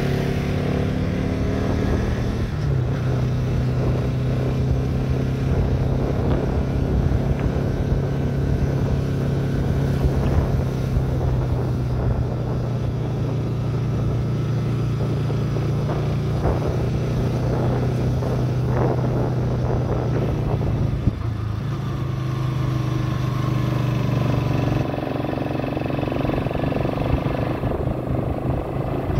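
Motorcycle engine running under way at a steady speed. Its note steps in pitch a few times, about two seconds in and again near the end.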